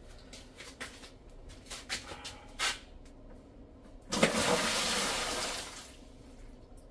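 A few light knocks and clatter of handling, then about four seconds in a rush of water pouring out for about two seconds and tailing off: water emptied from a whole-house filter canister into a bucket.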